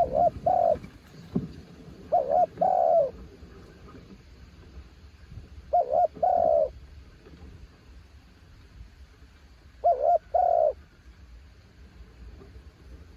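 Crossbred spotted dove cooing four phrases, a few seconds apart. Each phrase is a quick double note followed by a longer note, over a steady low wind rumble on the microphone.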